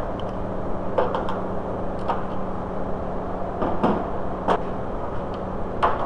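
A handful of short clicks and clunks of hard plastic door parts being handled and set down, over a steady background hum.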